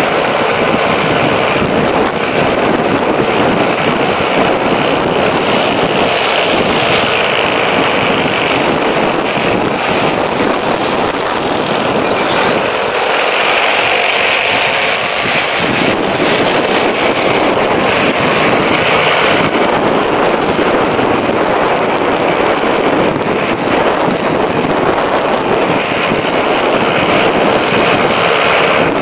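Steady rush of wind and road noise on a camera mounted on the bonnet of a moving car. The low rumble drops away briefly about halfway through, as the car slows through a turn.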